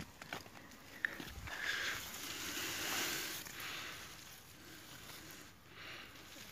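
Mustard plant leaves rustling and brushing as they are pushed aside and handled, in uneven swells, with a couple of soft clicks about a second in.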